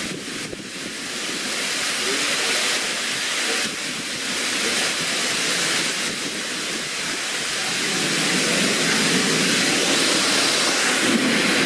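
Heavy thunderstorm downpour with strong gusting wind: a steady, dense rush of rain on pavement and cars that grows louder over the second half.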